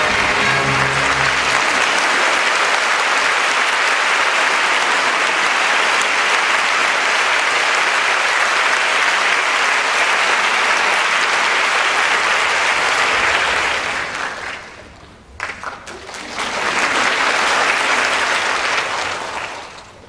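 Theatre audience applauding, dense and steady, with a held orchestral chord sounding under it in the first second or so. The applause thins out about 14 seconds in, swells again about two seconds later and fades away near the end.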